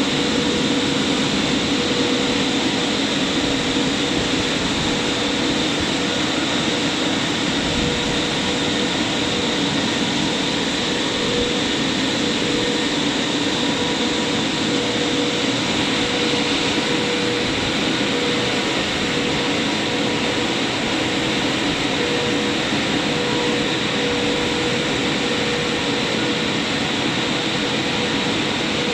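Christ Varius rollover car wash machinery running with a loud, even rushing noise and a constant hum.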